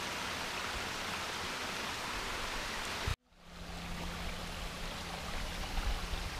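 Small moorland stream running over boulders, a steady rush of water. It cuts out abruptly about three seconds in, then fades back up.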